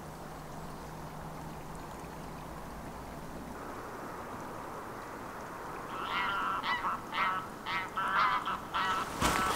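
Geese honking: a run of short, repeated honks, about two a second, starting about six seconds in over a steady background hiss.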